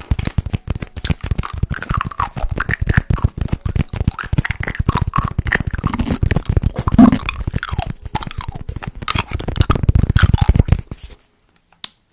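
Close-miked ASMR teeth sounds: rapid, dense clicking and tapping of teeth, stopping suddenly about eleven seconds in.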